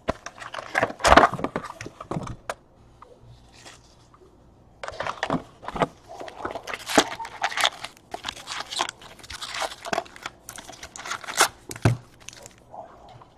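Trading card pack wrappers crinkling and tearing as packs are opened and the cards handled, in irregular bursts of rustling with a short lull about three seconds in.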